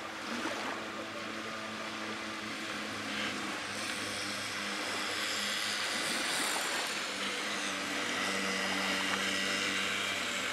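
A distant engine droning steadily, with a rushing hiss that grows louder from about four seconds in.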